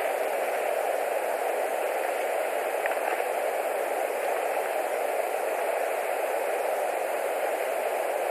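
Steady, even static-like hiss from the nest camera's outdoor microphone, with one faint tick about three seconds in.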